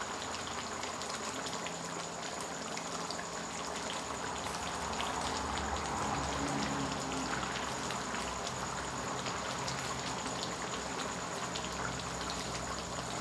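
Chicken hang le curry simmering in a wide metal pan, a steady patter of many small bubbles popping.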